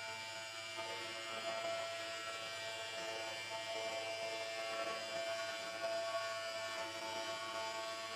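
Double-blade ceramic tile cutting machine running while its water-cooled blades cut through a tile: a steady motor hum with several held tones over a hiss.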